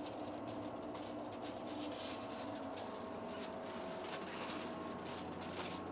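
Soft rustling and light handling noises as the electrospun fibre sample is peeled off the collector and carried away, over a steady hum of lab equipment.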